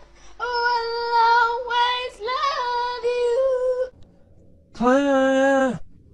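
A high singing voice holding long, steady notes in several short phrases, stopping about four seconds in. About a second later comes one lower held note, roughly a second long, that dips in pitch as it ends.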